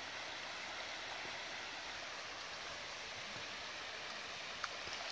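Steady outdoor hiss like running water or wind, even throughout, with one faint click about four and a half seconds in.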